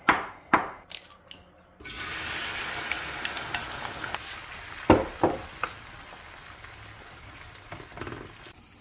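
A few clicks, then food starts sizzling in a frying pan about two seconds in, with utensil taps and a sharp knock near the middle; the sizzling eases off toward the end.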